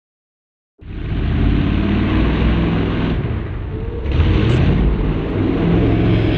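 After a moment of silence, a Jeep 4x4's engine runs hard at high revs as it churns through a mud bog pit. The engine eases slightly about three seconds in, then pulls hard again.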